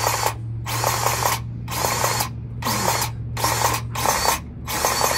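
Cordless electric grease gun pumping grease into a chassis grease fitting on a semi truck. Its motor runs in a steady pulsing rhythm, about one stroke a second, over a continuous low hum.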